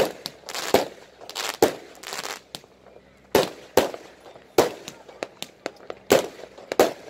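Aerial fireworks going off in about a dozen sharp bangs at irregular intervals, several trailing a short echo.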